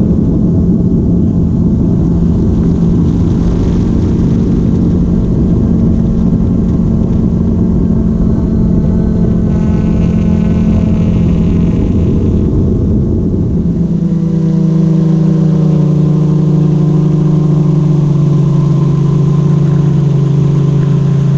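A camera drone's motors and propellers humming steadily, heard from its own onboard microphone, over a low rumble. A little over halfway through, the pitch of the hum shifts as the drone changes speed.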